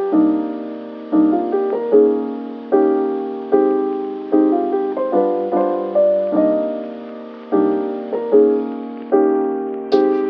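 Background piano music: slow chords struck roughly once a second, each fading away before the next, with higher notes coming in near the end.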